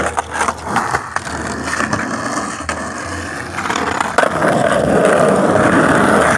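Skateboard wheels rolling over a concrete sidewalk, with a few clicks at the start. The rolling gets louder about four seconds in as the board picks up speed downhill.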